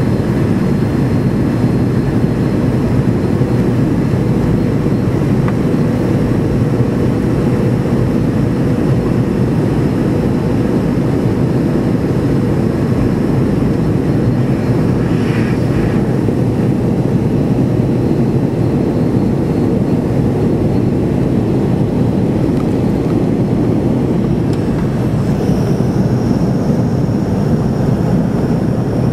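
Steady engine roar inside the cabin of a McDonnell Douglas MD-80 in its climb after takeoff, from its rear-mounted Pratt & Whitney JT8D turbofans, mostly low and even in level.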